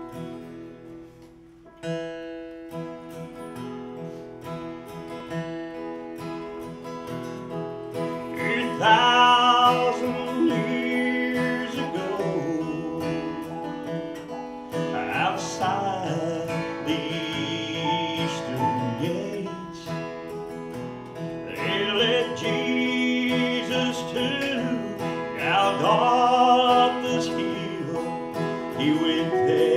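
Live gospel song played on acoustic and electric guitar. A short guitar intro starts about two seconds in, and a man's singing joins at around eight seconds, wavering on held notes.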